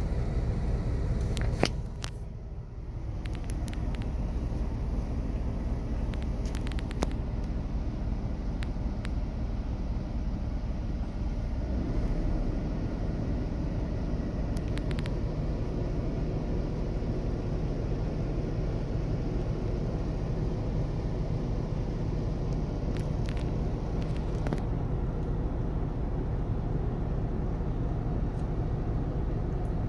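Diesel engine of a semi truck idling steadily. It dips briefly about two seconds in and its note shifts about twelve seconds in, with a few light clicks over it.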